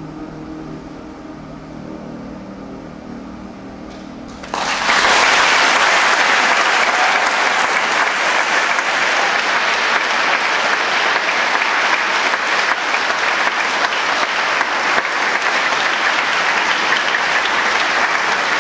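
The last notes of the music fade, then about four and a half seconds in a theatre audience breaks into loud, sustained applause.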